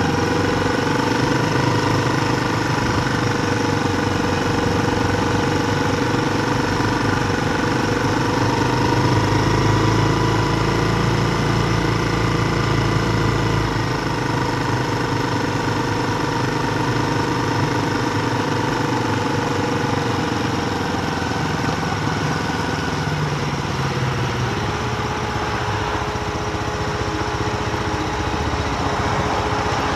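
Steady mechanical hum made of several pitched tones that drift slowly, over a dense rushing noise. About 24 seconds in, the hum drops slightly in pitch and then holds level.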